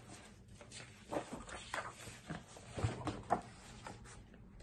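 Hardcover picture book being handled and its page turned: several short, soft rustles and taps.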